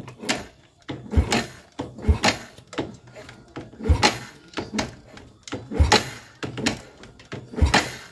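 Yamaha Jupiter Z motorcycle's kick-starter worked by foot again and again, a clunk and low thump every second or two, turning the single-cylinder four-stroke engine over without it firing. The engine is being deliberately turned over, not started, to circulate the freshly changed oil.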